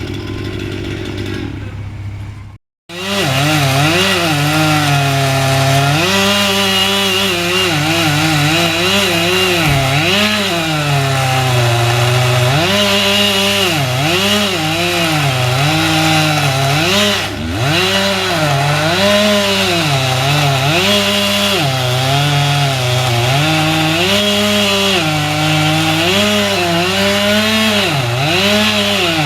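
Chainsaw cutting wood, its engine pitch dropping and climbing back every second or two as the chain bites and frees. It starts loud after a brief break about three seconds in, following a quieter, different sound.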